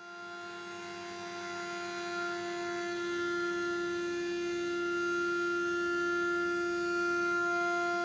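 DIY CNC router spindle whining at a steady, fixed pitch while milling a POM (acetal) plate with a small step over. The sound fades in over the first few seconds, then holds steady.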